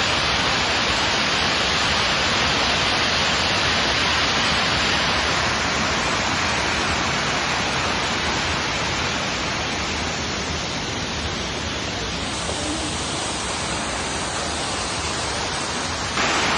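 Waterfall pouring steadily, a dense even rush of falling water. It eases a little partway through and comes back louder near the end.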